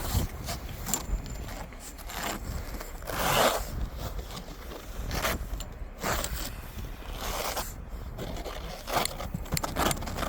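Snow scraper brushing and scraping snow and ice off a car's body and glass in irregular strokes, roughly one every second or two, with one longer, louder scrape about three seconds in.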